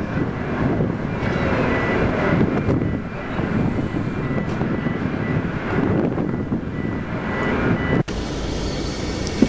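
Steady mechanical drone of the ro-ro car ferry Isle of Arran's engines as she lies at the terminal with her bow open, with a faint high whine on and off above it. It breaks off briefly near the end.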